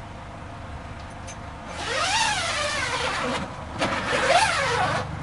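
The Mazda Bongo Friendee's powered pop-up roof mechanism moving the canvas top: a wavering whine and squeak that glides up and down, starting about two seconds in, over a low steady hum.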